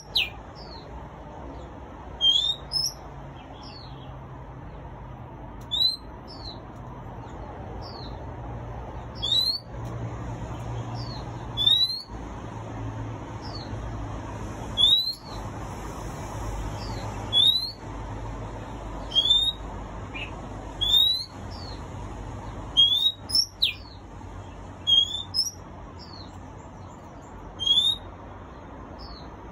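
Caged oriental magpie-robin singing: short, loud, upward-sliding whistled notes, some with a quick higher flourish, repeated about every one to two seconds.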